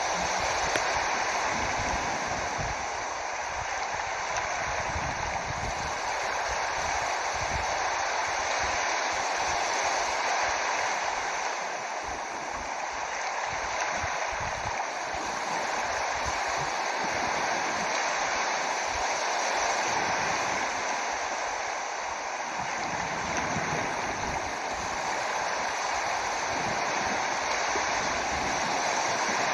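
Steady rush of flowing water, with an uneven low rumble underneath.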